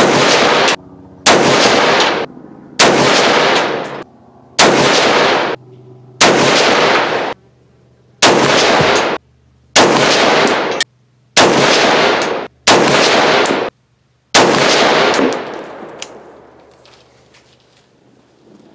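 Ten shots from an Axelson Tactical Hurricane bolt-action rifle in 6.5 Creedmoor, fitted with a muzzle brake, fired about one and a half seconds apart. Each sharp report rings out for about a second. The last one fades away over a couple of seconds.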